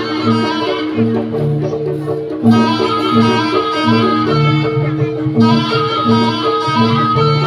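Javanese jaranan music: a bright, reedy melody line over a repeating low note pattern with percussion. The melody drops out for about a second and a half and comes back.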